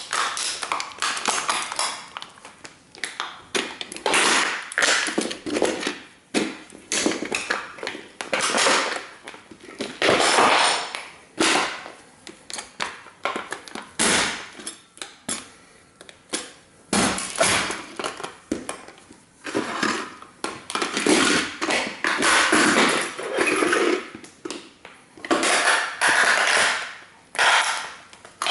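A 1:18 scale model toy car being stomped and crushed under Nike Air Max 95 sneakers: repeated irregular crunching and cracking impacts, with rattling between the stomps.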